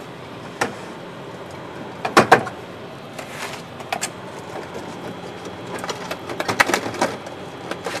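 Drinks cans and plastic salad containers being set onto the wire shelves of a refrigerated vending kiosk: separate knocks and clicks, loudest about two seconds in, with a cluster of light clatter around six to seven seconds.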